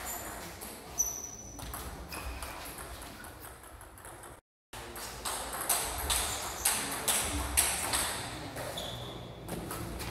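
Table tennis ball being struck back and forth in a rally: sharp ticks of the celluloid-type ball off the paddles and the table, coming about twice a second in the second half, with a few short sneaker squeaks on the floor. The sound drops out for a moment just before halfway.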